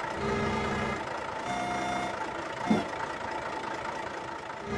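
Cartoon sound effects of a pipe-laying crane at work: a steady engine hum with repeating beeps like a reversing alarm, and a brief squeak about two and a half seconds in.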